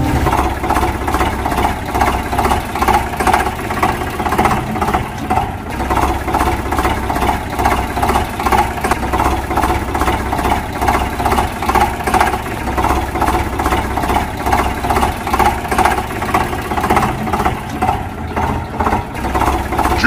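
Toy tractor engine sound effect: a steady, rhythmic chugging idle, a few beats a second.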